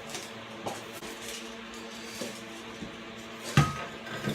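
A faint steady hum with a few light taps, and one sharp knock about three and a half seconds in.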